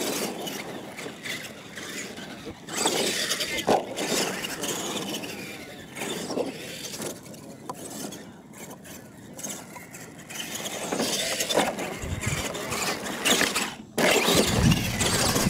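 Radio-controlled monster trucks driving on a dirt course, their motors and drivetrains revving up and down with the throttle. The sound swells and fades repeatedly and changes abruptly twice.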